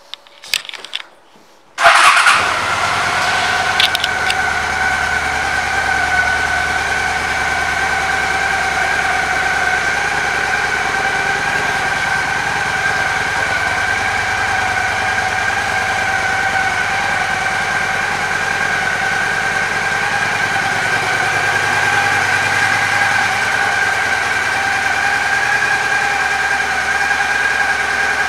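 A few faint clicks, then the 2001 Honda Shadow ACE 750's V-twin engine starts about two seconds in and settles straight into a steady idle, with a steady whine running over it.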